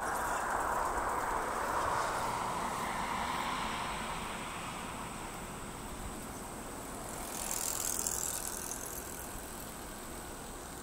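Distant, steady jet rush of an Airbus A350-900's Rolls-Royce Trent XWB engines on final approach, easing off after the first few seconds. A brief higher hiss swells about seven seconds in.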